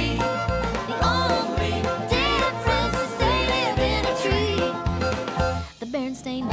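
Upbeat children's cartoon theme music: a bouncing bass beat under a melody line. It briefly drops away near the end before the beat comes back in.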